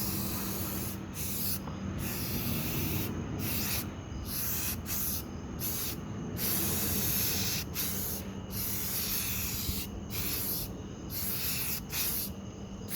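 Aerosol spray can of gray primer hissing in a string of short bursts, each about a second long, broken by brief pauses as the nozzle is pressed and released.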